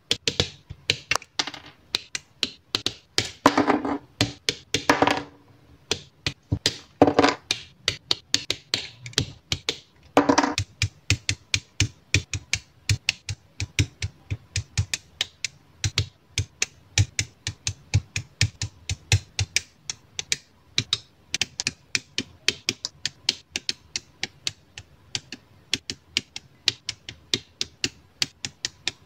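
Plastic model-kit parts being clipped off the runner and trimmed with Bandai Spirits side-cutting nippers: a rapid run of sharp clicks and snips. In the first ten seconds or so there are a few short bursts of plastic rattling as the runner is handled.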